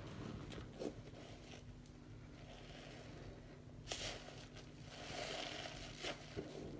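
Soapy sponges squeezed and kneaded in foamy water in a sink: soft squishing and crackling of lather, with a few brief, sharper wet squelches.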